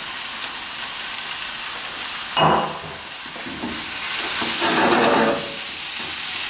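Chicken livers and hearts sizzling in a hot frying pan with onions and olive oil on high heat. About two and a half seconds in there is a sharp clack, then a slotted metal spatula scrapes and turns the pieces in the pan.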